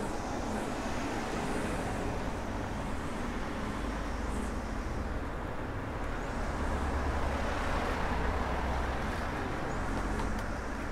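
Steady hum of motor traffic, one vehicle swelling louder about two-thirds of the way through and easing off near the end.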